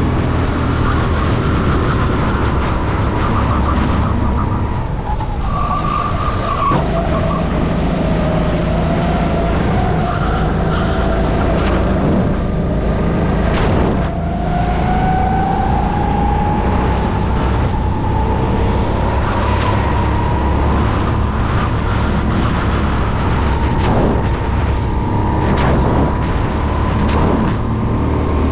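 Racing kart engine heard from on board at high revs. Its pitch drops as the kart slows for a corner, climbs back as it accelerates, and holds high along the straight. A few sharp knocks break through, over a steady low rumble.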